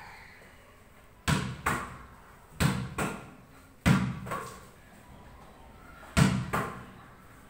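A netball thrown repeatedly against a breeze-block wall: four times a sharp smack is followed by a second thump less than half a second later, each ringing out in a bare concrete room.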